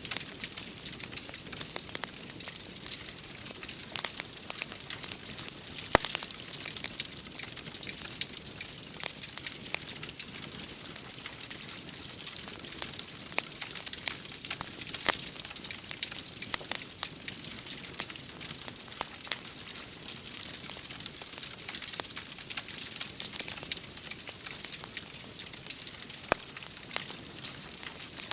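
Wood fire crackling, with frequent sharp pops and snaps, over a steady hiss of rain. The sharpest pop comes about six seconds in.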